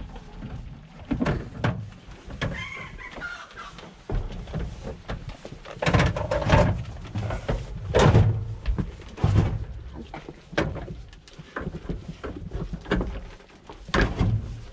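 Goats jostling in a wooden feeding stall, bumping against the wooden boards and corrugated metal siding with irregular knocks and thuds as they push for grain.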